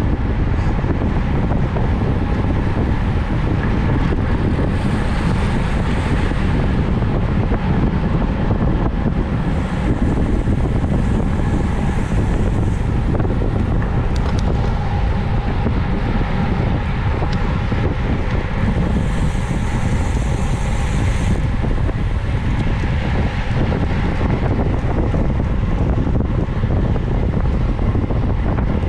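Steady, loud wind buffeting the microphone of a camera riding along at race speed on a bicycle, with a higher hiss joining in three times for a second or two.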